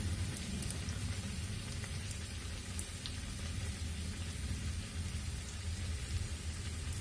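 Bhatura deep-frying in hot oil in a kadai: a steady sizzling and bubbling with a few sharp crackles, over a low steady hum.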